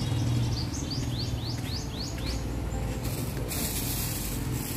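A small bird chirping a quick run of short rising notes, about four a second, for the first two seconds, then a brief hiss about three seconds in.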